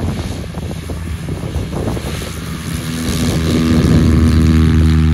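Wind buffeting the microphone, then a 1957 Piper Tri-Pacer's engine and propeller running at high power on the grass runway. The steady engine drone grows louder about three seconds in and becomes the loudest sound.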